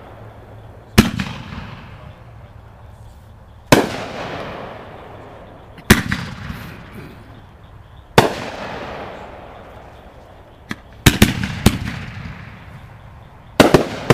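Consumer firework cake firing aerial shots that burst overhead. Each burst is a sharp bang followed by a fading crackling tail, coming about every two seconds, with several bangs in quick succession near the end.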